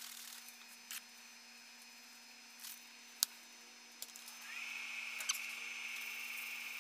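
Faint steady hum from a woodturning lathe, with a few light clicks and knocks from handling the workpiece. About four and a half seconds in, a high whine starts with a short rise in pitch and then holds steady, as the lathe motor spins up.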